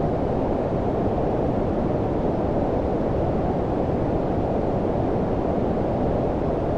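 Steady low-frequency filtered noise, brown-noise style, with its energy below about 1 kHz and the highs rolled off; an even rumbling hiss with no change.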